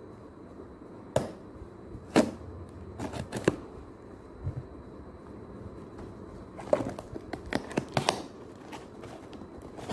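A cardboard parcel being opened by hand: sharp taps, clicks and scrapes as the taped box is poked at and its flap worked open, in scattered clusters about a second in, around two to three and a half seconds, and again around seven to eight seconds.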